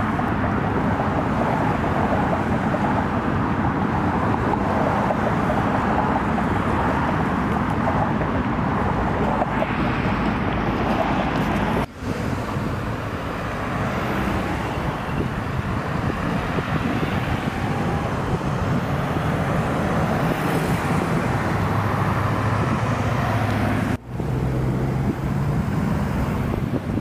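Steady outdoor road-traffic noise, with a low steady hum in the last few seconds. It breaks off abruptly twice, once a little before halfway and once near the end.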